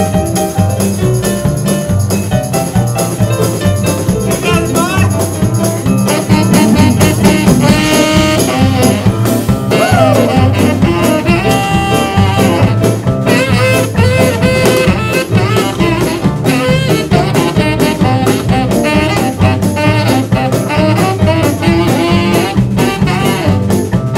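Live jazz band playing a swing number, with brass prominent and a few sliding notes about 5 and 10 seconds in.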